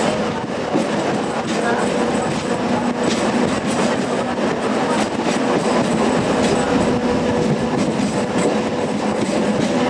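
Empty flat wagons of a long freight train rolling past on the rails: a steady rumble of wheels, with clickety-clack over the rail joints and a faint steady whine.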